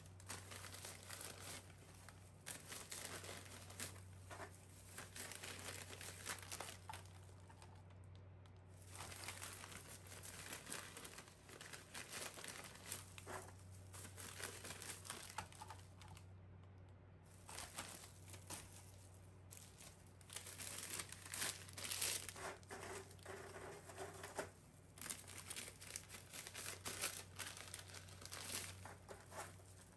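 Clear plastic bag and thin plastic gloves crinkling as crisp chiffon-cake rusk pieces are picked up and dropped into the bag, in stretches with short pauses. A low steady hum runs underneath.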